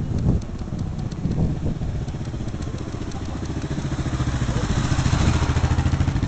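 Trail motorcycle's engine approaching at a steady throttle and passing close by, growing louder until the pass near the end.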